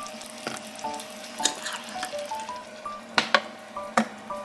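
Bacon-wrapped zucchini slices sizzling as they fry in a square pan. Near the end there are a few sharp clinks as a glass pan lid is set down on the pan.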